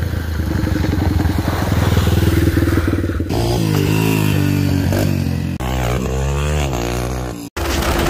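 Dirt bike engines revving up and down through several short spliced clips, the pitch rising and falling with the throttle. The sound changes abruptly about three and five and a half seconds in, and drops out for a moment near the end.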